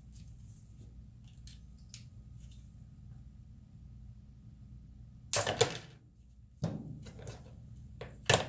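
Sharp clicks and clatter of small metal injector parts and tools handled on a workbench while a 6.0 Powerstroke fuel injector is taken apart and its solenoid removed. A few light clicks, then three louder clatters in the last few seconds.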